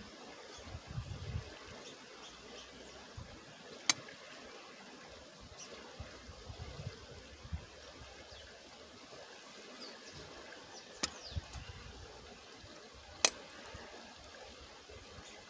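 Steady rush of a river running nearby, with three sharp clicks over it, the last the loudest near the end, from a moka pot and metal cup being handled on a campfire.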